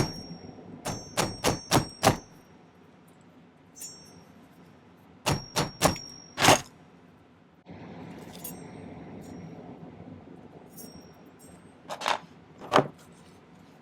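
Hammer blows flattening a curled sterling silver wire, each strike sharp with a short high metallic ring. They come in bursts: a run of about five quick blows near the start, four more around the middle, and two last ones near the end.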